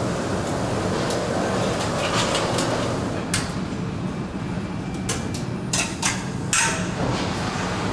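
An automated cheese-turning robot in an aging warehouse runs with a steady low motor hum. From about three seconds in, its mechanism gives several sharp clacks and knocks as it handles the cheese wheels.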